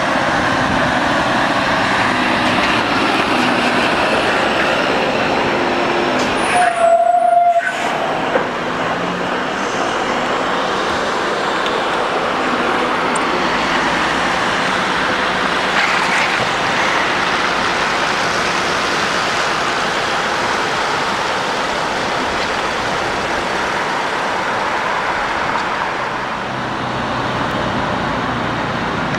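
Heavy-haulage truck's diesel engine running with tyre and road noise as it pulls an oversize low-loader. A brief steady tone about seven seconds in is the loudest moment.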